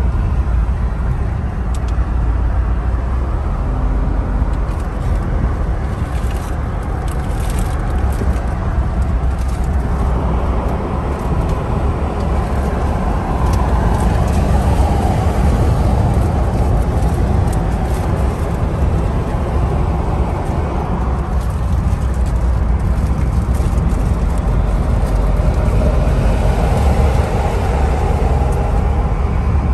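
Steady low rumble of a vehicle driving at highway speed, heard from inside the cab: tyre and engine noise with no break.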